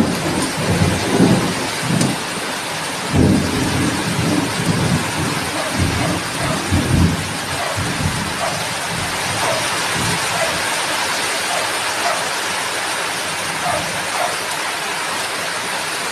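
Sardines in tomato sauce sizzling in hot oil in a wok, a steady crackling hiss, with irregular low bumps during the first seven seconds or so.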